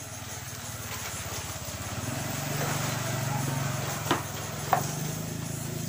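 A small engine running steadily, growing louder about two seconds in, with two short sharp knocks near the end.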